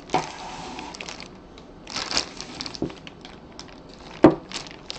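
Clear plastic sleeve around a maple baseball bat crinkling in a few bursts as the bat is handled and turned, with a sharp knock about four seconds in.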